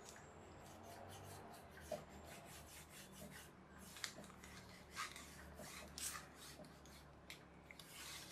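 Pencil rubbed along the edge of a polystyrene foam pizza-tray sheet, a series of faint scratchy strokes, pressing the foam edge flat into a rounded wing leading edge.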